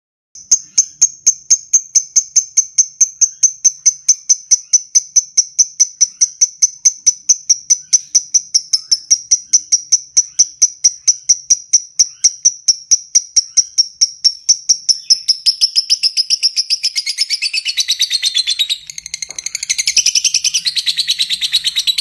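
Fischer's lovebird giving its long 'ngekek' chatter: a fast, even string of sharp, high chirps, about five a second, slowly sinking in pitch. After about 16 seconds it turns into a rougher, denser chatter, with a short break near 19 seconds.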